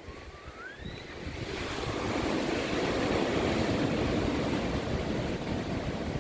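Ocean surf: a wave breaking and washing in, its rush building over a couple of seconds and then holding loud, with some wind.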